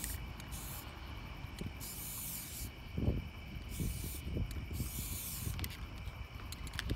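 Aerosol spray-paint can hissing in about five short bursts, each under a second long, as letters are sprayed onto the painted rock. A steady high tone and a low rumble with a few bumps run underneath.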